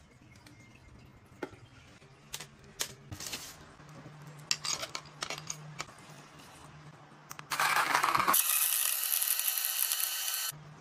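Portable personal blender's motor running for about three seconds near the end: a loud whirr with a steady whine that cuts off suddenly. Before it, scattered light clicks and taps of handling.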